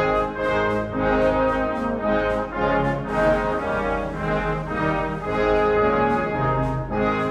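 Brass band playing a hymn tune in held, steadily changing chords.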